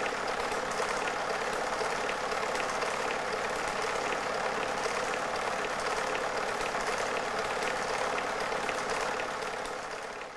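Super 8 film projector running: a steady whirring hiss with faint ticking, fading out at the very end.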